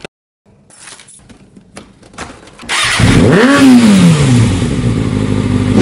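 Sport motorcycle engine starting about three seconds in, blipped once so the pitch rises and falls, then settling to a steady idle through an aftermarket slip-on exhaust.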